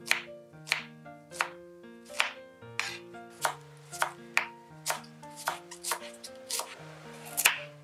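Kitchen knife slicing onion and then cutting a large green onion on a wooden cutting board, each cut a sharp knock of the blade on the wood, irregularly at about one to two a second.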